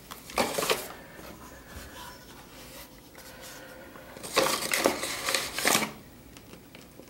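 Hands dusting flour onto a wooden pastry board and handling dough rolled around a wooden rolling pin: rustling, scraping noises, one short bout about half a second in and a longer bout of several strokes a few seconds later.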